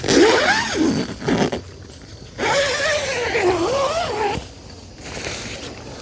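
Tent door zipper being pulled open in two long rasping strokes, the first about a second and a half, the second about two seconds, their pitch rising and falling with the speed of the pull.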